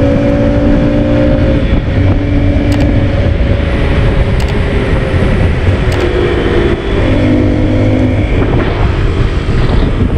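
Haojue NK150's single-cylinder 150 cc engine running under way with two people aboard, its note rising and falling gently, over wind and road noise on the onboard microphone. The sound dips briefly about seven seconds in.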